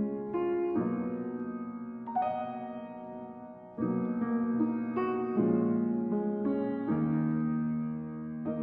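Background music: slow, gentle piano chords with sustained notes.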